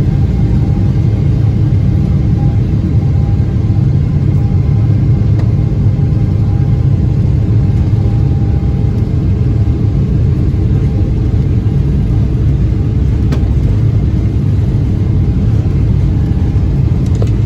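Cabin noise inside a Boeing 777 moving on the ground: a steady low rumble from the jet engines and the rolling airframe, with a faint steady hum above it.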